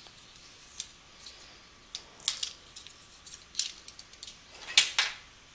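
Close-up handling of small hard objects, most likely clarinet reeds and their packaging being brought out: scattered light clicks and taps with brief crinkly rustles, the loudest cluster near the end.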